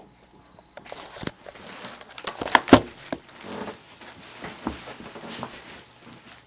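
Handling noise: rustling, bumps and clicks as a camera is moved and set down and a person shifts and settles in front of it, with a few sharp clicks about two and a half seconds in.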